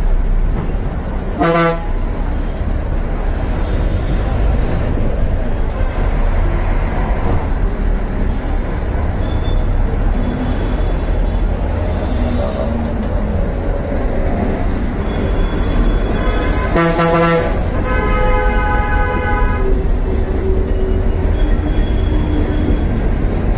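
City bus engine running with a steady low rumble, heard from inside the cabin amid street traffic. Vehicle horns honk over it: a short honk about a second and a half in, a louder blast of about a second around two-thirds of the way through, and then straight after it a longer, higher horn.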